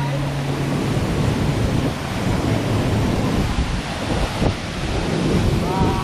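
Waterfall's steady rush of falling water.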